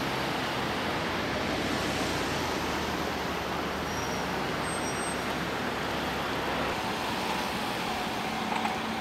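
A line of cars and vans driving past on a road: steady traffic noise with a low engine hum.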